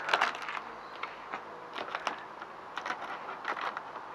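Brown plastic parcel tape on a cardboard box being picked at and cut open by hand: irregular small crackles and scratches, coming a few at a time.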